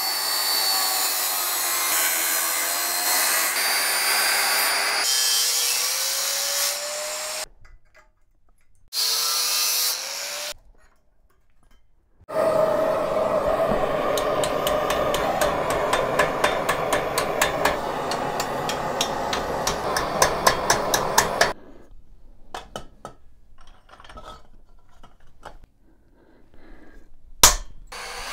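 Angle grinder cutting 40 by 40 mm steel box tube, its pitch rising as the cut frees, followed by a second short cut. Then a gas torch burns steadily while a hammer strikes the heated tube end in a vise, folding the tube wall over into a cap; the blows are evenly spaced and loudest near the end. A single sharp knock comes near the end.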